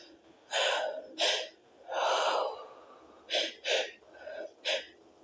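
A run of sharp, breathy gasps, about seven in five seconds, the later ones shorter and quicker. They come from a person on the edge of a sneeze, trying to hold it back.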